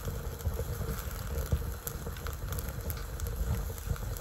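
Rubbish burning in the firebox of an old brick stove, crackling with scattered small pops over a low, uneven rumble.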